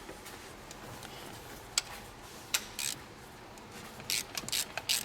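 Tool clicks and metal clinks, then a ratchet wrench ratcheting in quick short strokes from about four seconds in, as a charge-air pipe's fastenings are undone.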